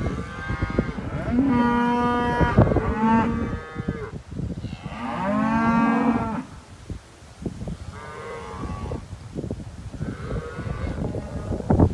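Black Angus cattle mooing in a pen: about six long calls, the loudest about two and five seconds in, over scattered short knocks.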